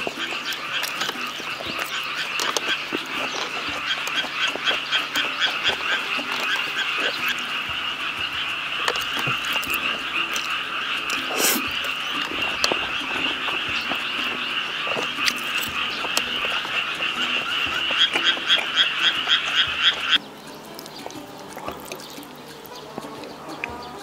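Frogs croaking in a chorus: a rapid, steady pulsing call that grows louder before cutting off suddenly near the end.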